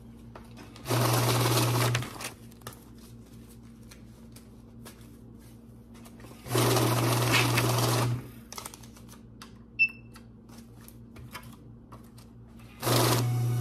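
Electric bill-counting machine whirring as it flicks a stack of banknotes through, three runs of one to two seconds each, with the rustle and clicks of bills being handled and fed in between. A short electronic beep from the counter about ten seconds in.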